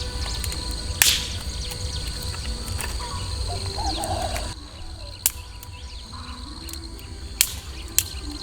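Raindrops ticking and cracking sharply on a tent, scattered and uneven, over a steady high insect trill; the sound drops in level about halfway through.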